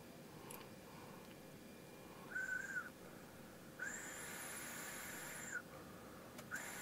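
Air whistling thinly through a Genius-type e-cigarette tank atomizer as it is drawn on: three faint high whistles that bend up at the start and down at the end, the middle one nearly two seconds long.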